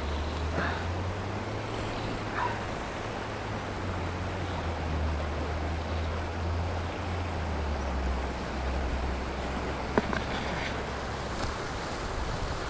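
Shallow, rocky river rushing steadily over stones in a riffle, with a low rumble underneath. A single sharp click about ten seconds in.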